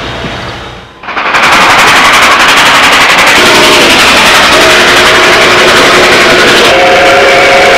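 A steam locomotive passing close at speed, its exhaust beating rapidly and evenly. From about three seconds in, its chime whistle sounds several notes at once in spells, loudest near the end. The first second is quieter and fading.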